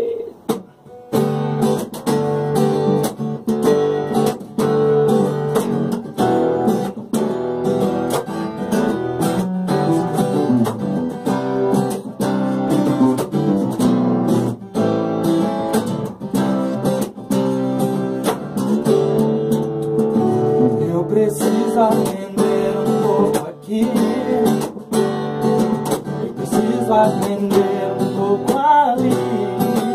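Steel-string acoustic guitar strummed in a steady rhythm with an acoustic bass guitar playing under it, starting about a second in. A man's voice begins singing near the end.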